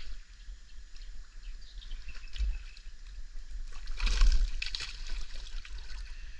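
Water sloshing and trickling, with a louder splash about four seconds in, over a steady low rumble.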